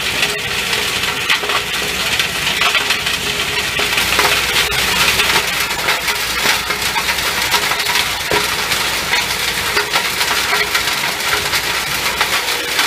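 KIRPY BSC 250 tractor-driven stone crusher working through stones, a dense, continuous crackling and crunching of rock being shattered by its rotor over a steady hum of the machinery.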